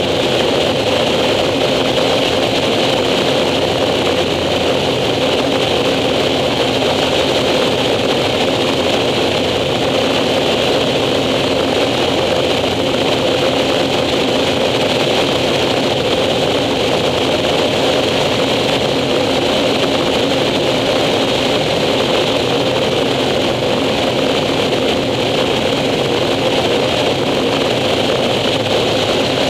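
Air Tractor 402B's Pratt & Whitney PT6A turboprop engine and propeller running at steady power in flight, heard from inside the cockpit as a constant loud drone with a steady high whine.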